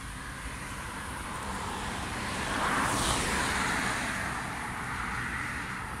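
A vehicle passing by: its noise swells to a peak about halfway through, dropping in pitch as it goes past, then fades, over a steady low rumble.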